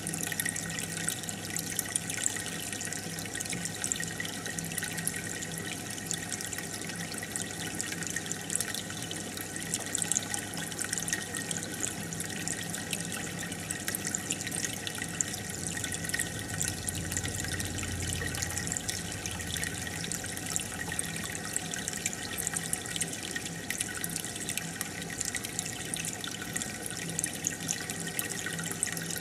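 Aquarium water trickling and bubbling steadily, with fine crackling of bubbles and a faint low hum underneath.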